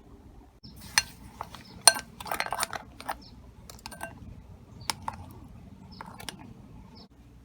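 A utensil clinking and scraping against a bowl while slime is mixed: a few sharp, irregular clinks, with a short burst of scraping about two seconds in.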